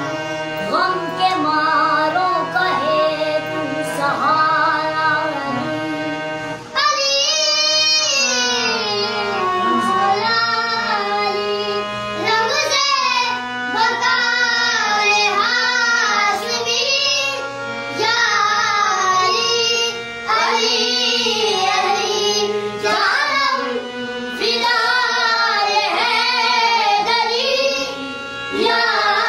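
Children singing an Urdu devotional song in praise of Ali, accompanied by a harmonium holding steady notes under the melody. A higher, brighter child's voice with a quavering line takes the lead a few seconds in.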